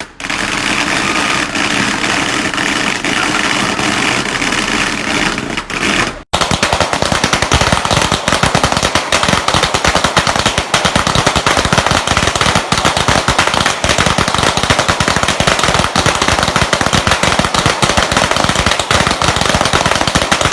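Fireworks going off in a continuous rapid crackle of bangs. It breaks off for an instant about six seconds in, then resumes as a denser stream of closely spaced sharp cracks.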